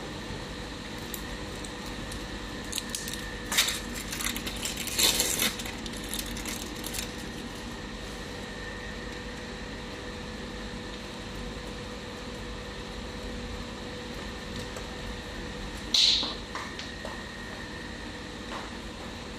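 Egg omelette cooking in a frying pan on a gas stove: a steady low hiss and hum, broken by a cluster of clicks and clatter of a utensil on the pan about four to seven seconds in, and a single sharp clink at about sixteen seconds.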